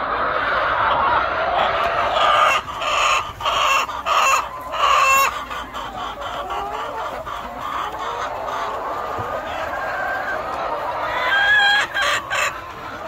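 A flock of laying hens clucking and calling over one another in a steady din. Louder, sharper calls stand out in a cluster a few seconds in and again near the end.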